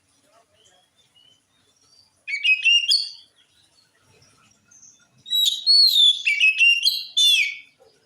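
Oriental magpie-robin (kacer) singing: two bursts of varied whistles, glides and rapid chattering notes, a short phrase about two seconds in and a longer one about five seconds in.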